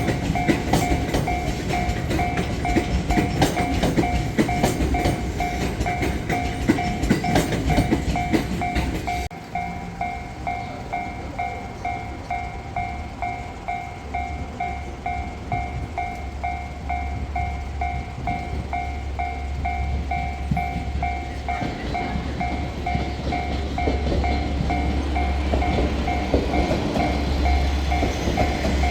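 Japanese level crossing warning bell ringing in steady, evenly repeating dings while a train passes with its wheels clicking over the rail joints. About nine seconds in, the passing-train noise stops abruptly; the bell keeps ringing over a steady low hum of another train.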